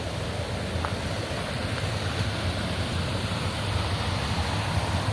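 Steady rushing of a creek running high and fast.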